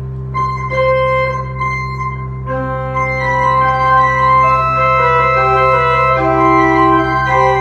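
Small pipe organ playing slow, sustained chords, with notes entering and changing one after another over a steady low tone.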